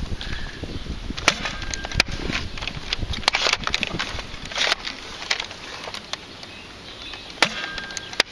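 Nerf Longshot blaster with stainless steel aftermarket internals being primed and fired: several sharp plastic-and-metal clacks of the bolt racking and of the shots going off. A breeze rumbles on the microphone underneath.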